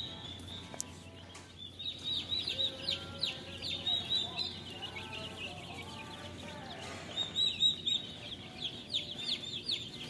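Many baby chicks peeping: rapid, high-pitched, downward-falling peeps that come in busy clusters, thinning out in the middle and picking up again about seven seconds in.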